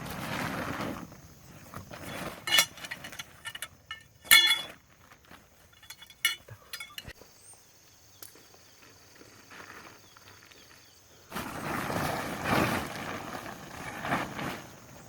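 A few sharp ringing clinks, the loudest about four seconds in, then a few seconds of rustling and scuffing noise near the end. A faint steady high-pitched tone sounds through the middle.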